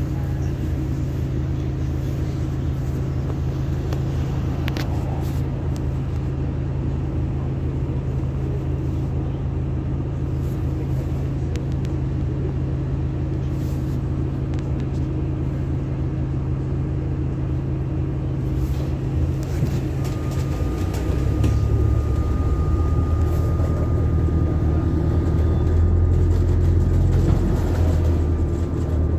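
Cabin noise on the lower deck of an Alexander Dennis hybrid double-decker bus: a steady low drone from the drivetrain and road. About twenty seconds in the drone grows louder and a steady high whine joins it.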